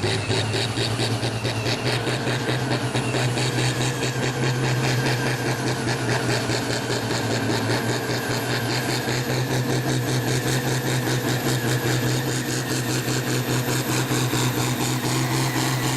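Farm tractor engine running hard at a steady high speed, with a dense rapid exhaust beat, as it pulls the weight sled down the track.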